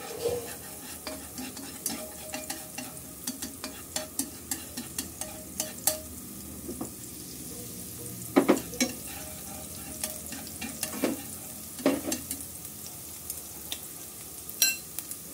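Minced shallots and garlic sizzling in hot oil in a nonstick frying pan, fried until fragrant, with a utensil stirring and tapping against the pan. Frequent light taps, with louder knocks about eight and twelve seconds in and near the end.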